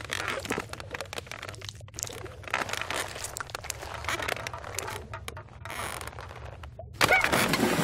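Dense crackling, crinkling and scraping sound-effect foley, with a loud creaking sound starting near the end.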